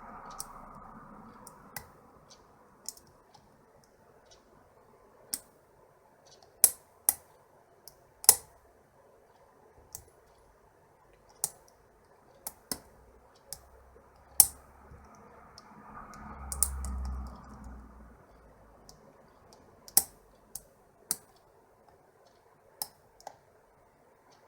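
Sharp, irregular clicks of a hook pick and tension wrench working the pins of a pin-tumbler lock with serrated key pins, as pins bind and give false sets. A brief low rumble of handling about two-thirds of the way through.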